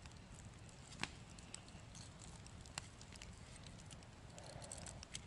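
Near silence with a few faint, sharp clicks and ticks scattered through it, the clearest about a second in, near three seconds and just before the end, over a low steady background.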